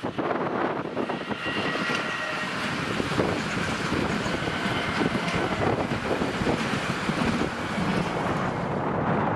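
Train passing close by: a loud, steady rumble of wheels on the rails that sets in abruptly. A faint high whine sounds over it from about a second and a half in until about five seconds in.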